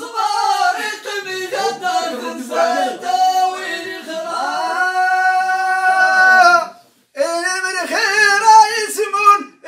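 A man singing unaccompanied Amazigh inshaden sung verse. He holds one long note, breaks off briefly about seven seconds in, then sings on.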